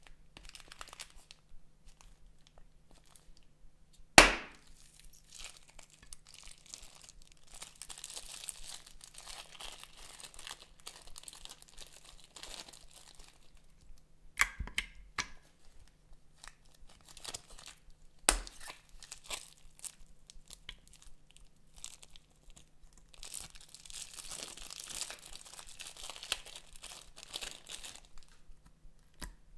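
Plastic zip-lock bags crinkling and thick slime crackling and squelching as it is squeezed out of the bags, in two long stretches. A loud sharp click comes about four seconds in, with a few softer taps later.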